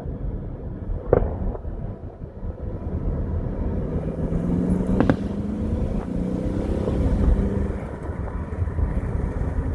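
Car running while driving, a steady low rumble heard from inside the car, with a couple of sharp bangs about a second in and around five seconds in.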